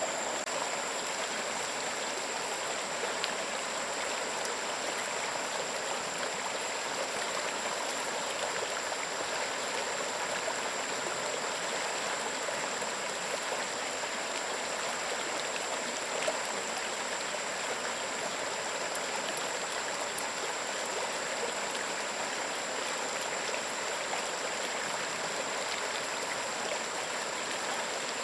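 Stream water rushing steadily over stones, with a steady high-pitched tone above it.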